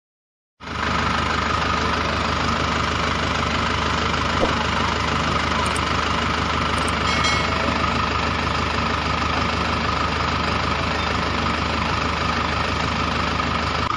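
Engine running at a steady idle, cutting in abruptly about half a second in and holding an even, unchanging drone with a constant hum.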